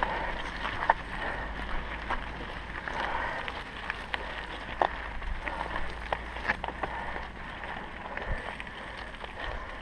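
Mountain bike riding over a rough, stony dirt trail: tyres crunching on loose gravel and the bike rattling in irregular sharp clicks and knocks, with some wind on the microphone.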